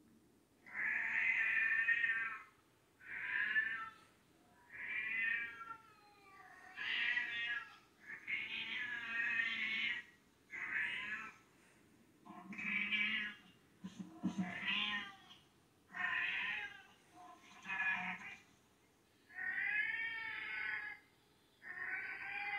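A cat screaming in long, drawn-out meows that rise and fall in pitch, about a dozen calls with short pauses between them, played through a television's speakers.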